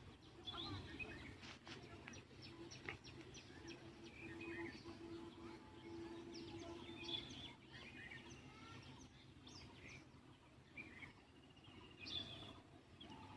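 Faint birds chirping and calling, with scattered short chirps and whistles. A faint low steady hum comes in for a few seconds in the middle.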